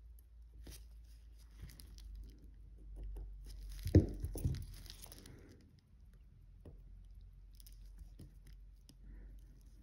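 Small clicks and handling noises of watchmaker's tools, such as tweezers and a screwdriver, working on a watch movement on the bench, with two sharper knocks about four seconds in.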